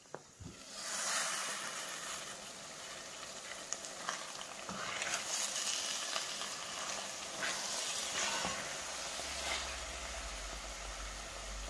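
Lamb mince with peas and red pepper sizzling in a steel pot as a wooden spoon stirs it, with scraping strokes against the pot. The sizzle starts about a second in, just after the lid comes off.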